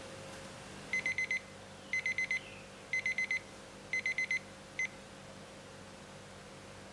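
Electronic alarm beeper sounding: a rapid burst of four high beeps, repeated once a second four times, then one short beep just before it stops.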